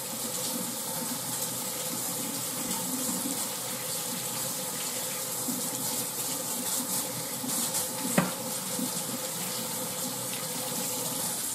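Kitchen tap running steadily while hands are washed under the stream, shut off abruptly at the end. A single knock sounds about eight seconds in.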